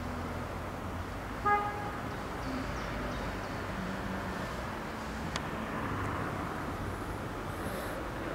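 A short single horn toot from an NS Sprinter (SGM) electric train about one and a half seconds in, over a steady low rumble.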